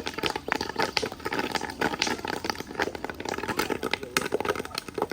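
Fish frying in hot oil, the oil crackling and popping with many sharp, irregular spits, like popcorn.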